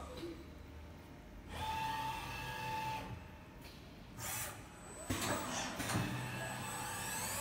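Spinner PD-CNC turning center running: electric whines from its drives come in short spells, with a few knocks. Near the end a whine rises in pitch as a motor spins up.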